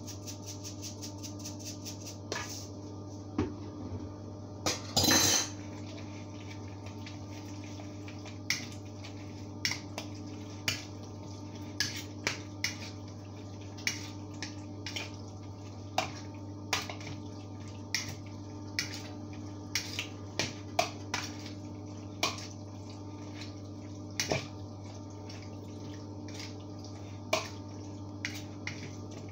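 A spoon clinking and scraping against a glass mixing bowl while stirring raw chicken pieces with dry seasoning: irregular clinks about once a second, with one louder, longer scrape about five seconds in, over a steady low hum.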